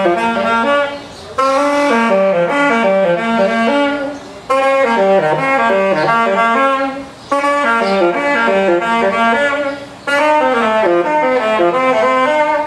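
Solo saxophone playing a jazzy melody in phrases of about three seconds, separated by short pauses for breath, each line dipping low and climbing again.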